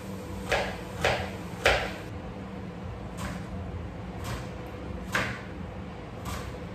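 Knife slicing an onion on a cutting board: separate chops, three quick ones in the first couple of seconds, then slower, about one a second.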